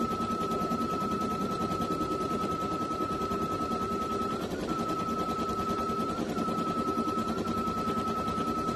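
Baby Lock Flare embroidery machine stitching in the hoop: a rapid, steady chatter of needle strikes over a constant high whine that blips briefly in pitch twice.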